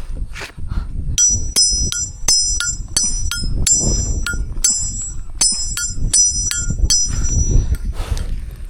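Hammer driving a metal nail into a tree, a quick, even run of ringing metal-on-metal blows about three a second that starts about a second in and stops about seven seconds in.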